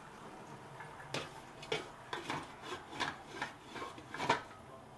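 A utensil scraping a stainless steel sauté pan of rice and vegetables: about eight short, irregular scrapes over a few seconds, over a faint steady sizzle.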